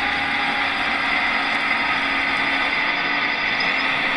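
Radio-controlled Liebherr 946 model hydraulic excavator driving on its tracks: a steady mechanical whir of its hydraulic pump and gear-driven track drives.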